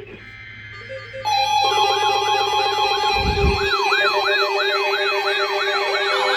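Electronic emergency alert signal for a severe thunderstorm warning. About a second in, loud steady tones start, layered with a siren-like wail that sweeps down over and over, about two and a half times a second. A low hum underneath ends with a brief low thud about three seconds in.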